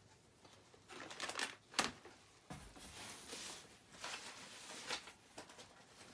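Rummaging in a cardboard box: packaging rustling and crinkling, with a few light knocks in the first two seconds.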